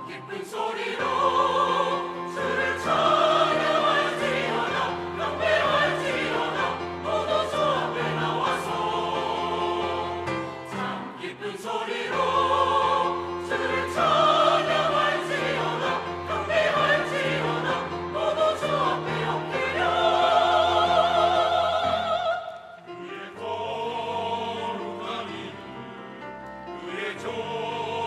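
Church choir singing a sacred anthem in several parts over sustained instrumental accompaniment, with vibrato on held notes. A loud held chord around 20 seconds in gives way to a softer passage.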